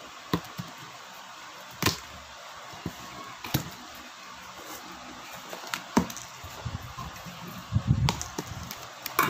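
Scissors snipping through the tape on a cardboard box, then the cardboard flaps being pulled open: a handful of sharp, irregular snips and snaps, with dull thumps of cardboard near the end.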